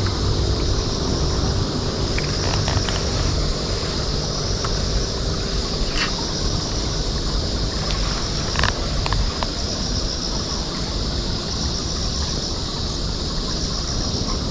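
Outdoor ambience with wind rumbling on the microphone under a steady high-pitched drone, and a couple of sharp clicks about six and nine seconds in.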